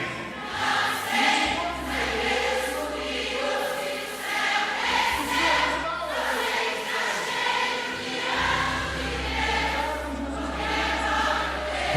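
A congregation singing together in a choir-like mass of voices, a worship song.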